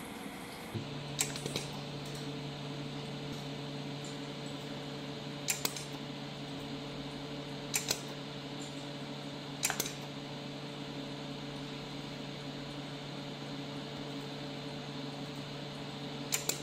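DOWIN desktop 100 W jewelry laser welder: a steady machine hum that sets in about a second in, with sharp snaps of laser pulses firing on the workpiece, mostly in pairs, five times at irregular intervals.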